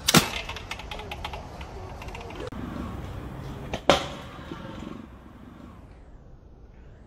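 Stunt scooter landing hard on concrete, a sharp clack followed by a run of quick clicks as the wheels roll away. A second landing about four seconds in, a small knock then a loud slap.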